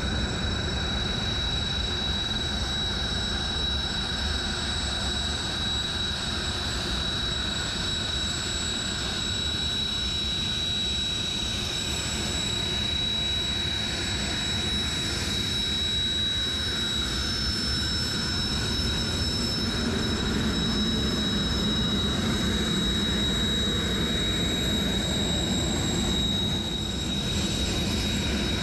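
Jet trainer turbofan engines running: a steady high whine over a broad rushing noise. A second, higher whine joins for several seconds in the middle.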